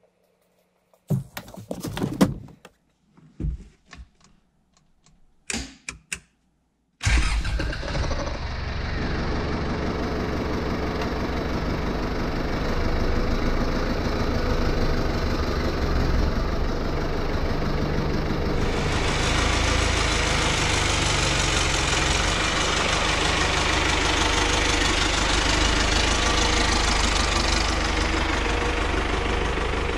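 A few short knocks and clunks, then about seven seconds in a Cummins 4BT 3.9-litre turbo-diesel four-cylinder comes in suddenly and runs steadily at low revs.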